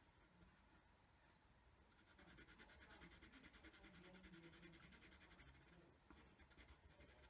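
Faint scratching of a graphite pencil shading on paper, quick back-and-forth strokes, starting about two seconds in and stopping about six seconds in.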